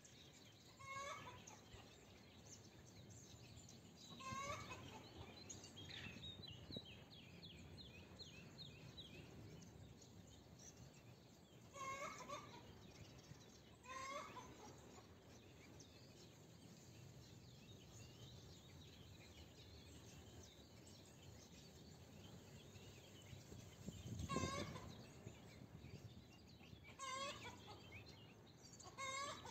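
Domestic hen giving short clucking calls now and then, about seven in all, over a faint bird chorus. A small bird sings a quick high trill a few seconds in.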